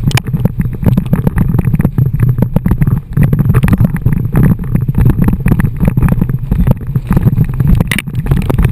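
Loud, choppy low rumble of wind buffeting the microphone of a camera mounted on an inflatable bumper tube, mixed with water rushing under the tube as it is towed fast across the sea.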